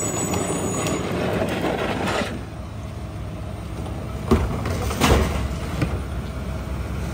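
New Way rear-loader garbage truck's engine running steadily while trash is thrown into its rear hopper, with a few sharp knocks and bangs in the second half as a bag and then a cart's load go in.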